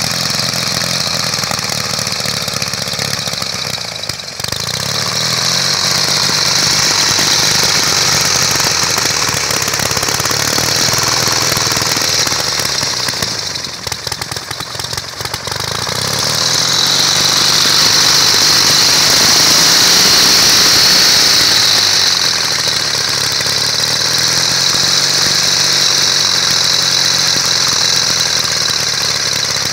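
1910 Douglas motorcycle's flat-twin engine running on its stand, just after being started. It drops back briefly about four seconds in and again around the middle, then picks up and runs at its loudest.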